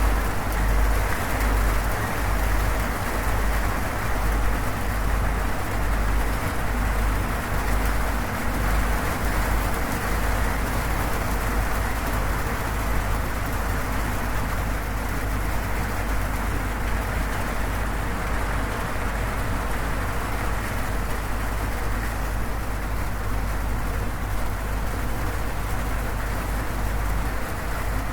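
Steady heavy rain drumming on a corrugated zinc roof, with a low rumble underneath that wavers during the first ten seconds or so and then holds even.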